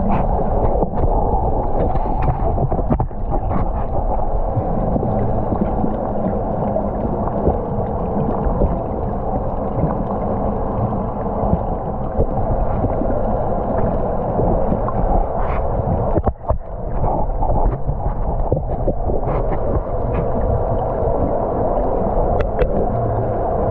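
Underwater ambience picked up through a camera housing: a steady, muffled low rumble and hum with scattered faint clicks.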